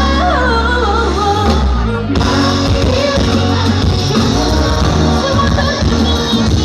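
Live pop music with a band and vocals. A singer's wavering melody stands out over bass and drums for the first two seconds, then the full band plays on.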